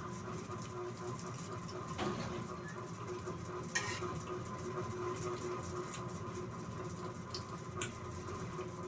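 Spoon clinking lightly against a plate a few times, the sharpest click about four seconds in, with quiet chewing over a steady low room hum.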